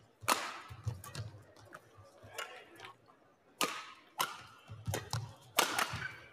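Badminton rackets striking a shuttlecock: sharp, crisp hits. There is one shortly after the start, then a run of several hits from about three and a half seconds in as a new rally gets going.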